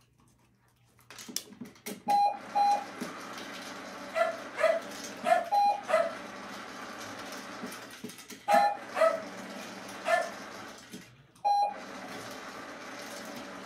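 Puppy giving short whines and yips, mixed with about five short, flat electronic beeps, over a steady hiss that starts about a second in and drops out briefly twice.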